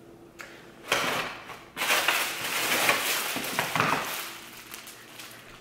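Clear plastic bag crinkling and rustling as it is handled: a short burst about a second in, then a louder, longer stretch of crinkling that dies down at about four seconds.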